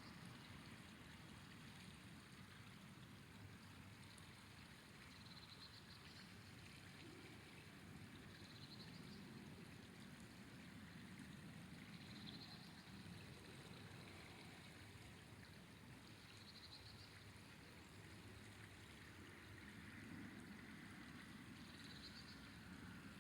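Faint, steady flow of a river, with short high-pitched chirps every few seconds.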